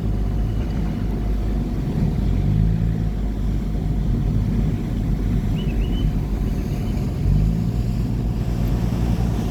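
A river tour boat's engine running steadily under way: a low drone that shifts slightly in pitch, a faint steady whine above it, and a constant rush of water and wind.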